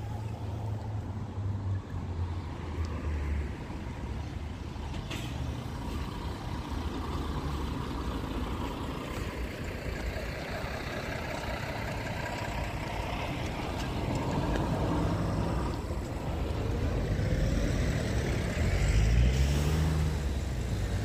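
Motor vehicle engine noise, steady and low, with an engine rising in pitch near the end as a vehicle speeds up.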